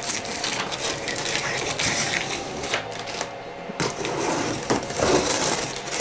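A knife blade slitting packing tape along the seams of a large cardboard box: scraping, crackling tape and rustling cardboard, with a short lull a little past halfway.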